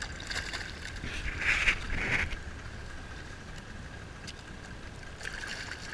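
Hooked Papuan black bass thrashing and splashing at the water's surface beside the boat as it is held for landing, with two splashy bursts about a second and a half to two seconds in, over a steady low rumble of wind and water.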